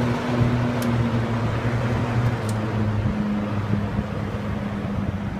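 Two late-1960s Hunter box fans running together on medium speed: a steady rush of air over a motor hum. The hum changes and drops slightly about three seconds in.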